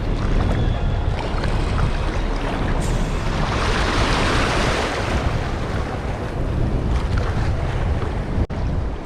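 Surf washing over a shoreline reef, with wind buffeting the microphone; a wave surges and swells in loudness about four seconds in.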